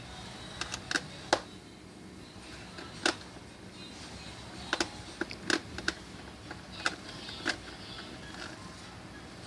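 Irregular small sharp clicks and taps of a screwdriver and hand tools against a laptop's screws and plastic and metal parts, about a dozen in all, the loudest about a second in and about three seconds in.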